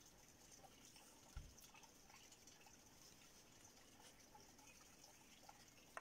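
Near silence: faint background hiss with one soft low thump about a second and a half in.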